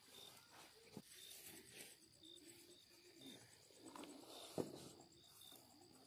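Faint night-time outdoor quiet: a cricket chirping in short high pulses about once or twice a second. A few soft knocks and rustles of someone moving about, the sharpest about three-quarters of the way through.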